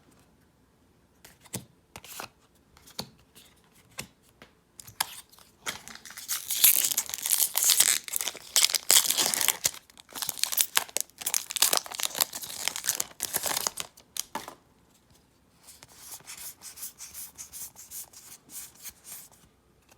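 A Magic: The Gathering booster pack's foil wrapper being torn open and crinkled. It starts with scattered small crackles, is loudest and densest through the middle, then gives way to softer rustling near the end as the cards are slid out and handled.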